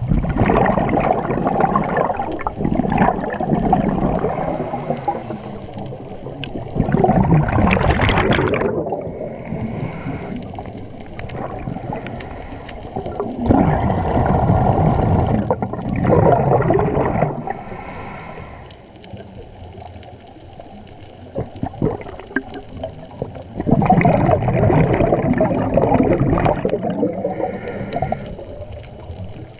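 Scuba diver breathing through a regulator underwater. There are four long rushes of exhaled bubbles, with quieter intake hiss between them.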